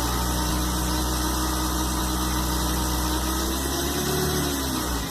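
Car engine idling with a thin whine from the automatic transmission on top of the steady hum, in park or neutral. The whine could come from the transmission oil pump, a worn torque converter bushing, or foamy, old or overheated fluid.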